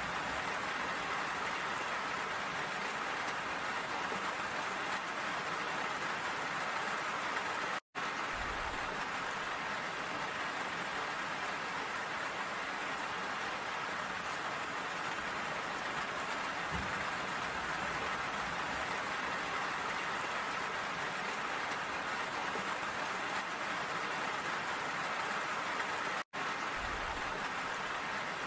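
Steady rain falling, an even dense hiss of many drops, that cuts out for an instant twice: about eight seconds in and near the end.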